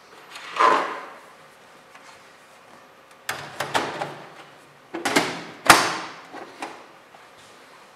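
Cover panel of a Dell desktop computer case being handled: a sliding scrape as it is picked up, a clatter of clicks as it is set onto the case's hinges, then it is swung down and latched shut with a sharp snapping click, followed by a couple of lighter clicks.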